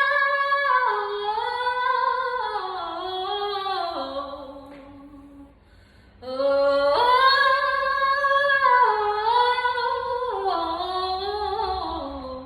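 A woman singing an unaccompanied, wordless vocal improvisation on open vowels: two long phrases that each start high and step down in pitch, with a short pause between them.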